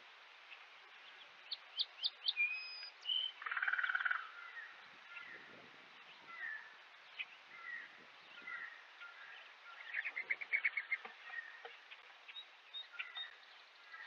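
Several wild songbirds chirping and calling over a faint outdoor background, with short whistled notes throughout and two busier runs of rapid chirps, about two to four seconds in and again about ten seconds in.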